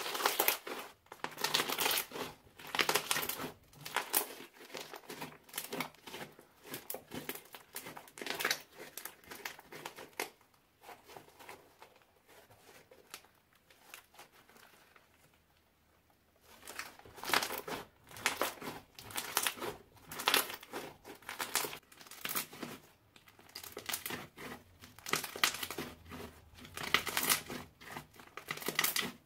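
Hands squeezing and kneading pink slime mixed with small beads, giving a string of quick squishes. It goes much quieter for a few seconds in the middle while the slime is pulled out and stretched, then the squeezing starts again.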